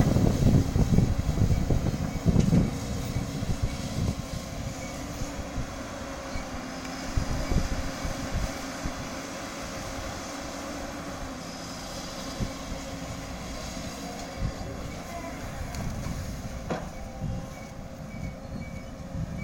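JCB backhoe loader's diesel engine running steadily under digging work, with a constant droning tone and uneven low rumbling, loudest in the first few seconds.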